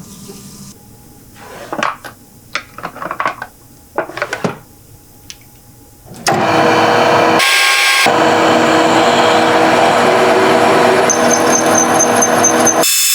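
A few sharp knocks and clicks of tools and parts being handled, then a power tool starts about six seconds in and runs loudly and steadily.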